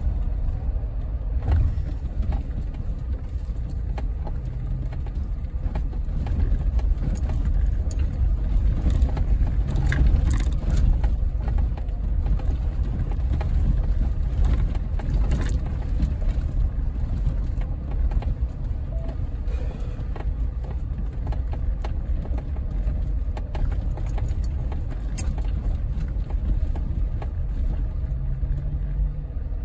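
Low, steady rumble of a Jeep's engine and drivetrain heard from inside the cabin while it drives slowly over a rough dirt trail, with a few knocks and rattles as it goes over bumps.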